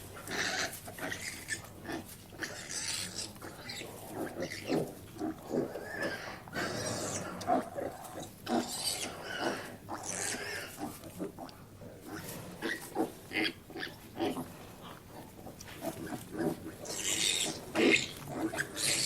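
Pigs grunting and squealing in short, irregular calls, with louder squeals near the end.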